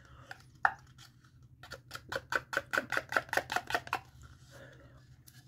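Eating Greek yogurt with a spoon: a single click, then a quick run of small clicks and scrapes, about eight a second, for a couple of seconds.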